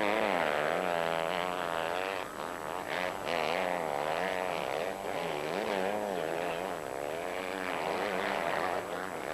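KTM motocross bike's engine revving up and down again and again as the rider works the throttle over the track, its pitch rising and falling every second or so.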